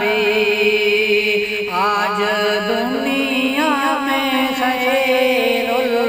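A man singing a devotional qawwali-style naat in long, ornamented held notes with wide vibrato, over a steady sustained drone.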